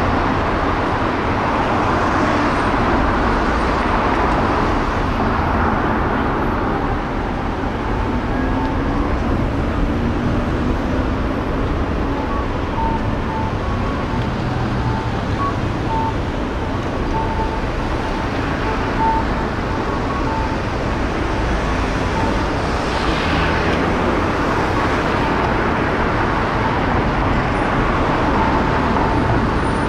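City street ambience dominated by steady road traffic noise, with a faint series of short high tones repeating through the middle.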